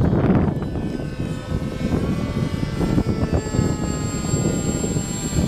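Small electric FPV multirotor drone's motors and propellers spinning up on the ground: a whine of several stacked tones starts about a second and a half in and rises slowly, over low wind rumble on the microphone.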